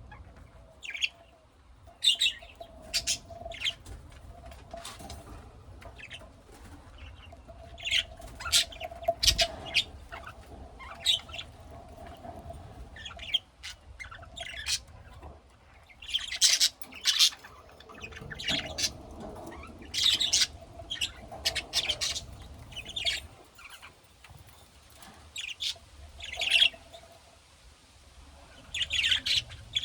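Small pet parrots chirping and squawking in short, sharp, irregular calls, with busier bursts of chatter from time to time.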